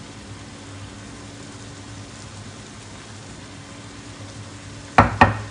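Ground chili sambal sizzling as it fries in oil in a pan, a steady hiss. Near the end come two sharp knocks a quarter second apart.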